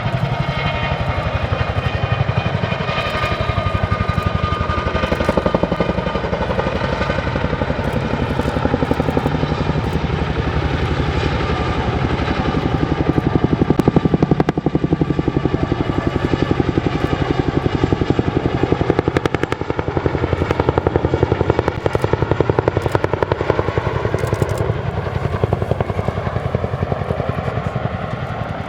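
Boeing CH-47J Chinook tandem-rotor helicopter in flight: rapid rotor beating under a turbine whine that slowly shifts in pitch as it passes. Loudest about halfway through, easing off near the end.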